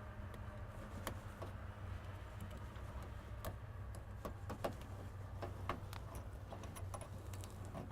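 Scattered small clicks and taps, irregular and several a second at times, as wire connectors are pushed onto the terminals of a replacement ignition switch, over a faint steady electrical hum.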